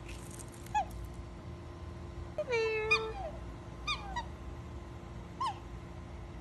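Black swan calling: several short, high, mewing calls and one longer held call about two and a half seconds in, over a steady low background hum.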